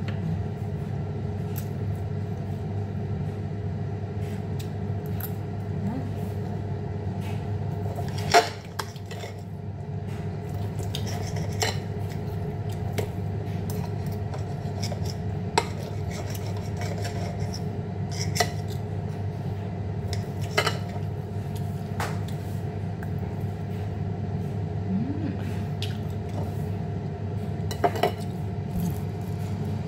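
Knife and fork clinking and scraping on a ceramic plate while cutting steak, with sharp clinks scattered through, the loudest about eight seconds in. A steady machine hum runs underneath.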